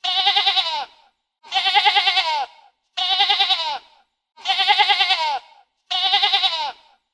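Sheep bleating: five long, wavering baa calls of about a second each, evenly spaced about every second and a half.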